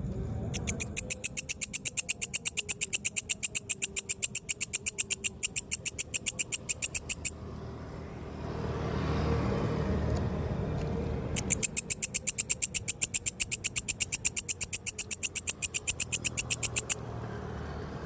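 A katydid calling in two bouts of rapid, evenly spaced high-pitched pulses, several a second, each bout lasting about six seconds. Between the bouts a low rushing noise swells and fades, over a steady low rumble.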